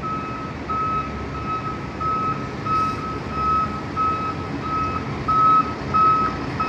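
Reversing alarm of a flatbed tow truck backing up: an evenly repeating single-pitch beep, a bit under two a second, over the low running of the truck's engine.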